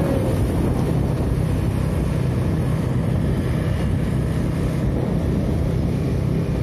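Steady wind buffeting the microphone over the running engine and road noise of a motorbike on the move, unbroken throughout.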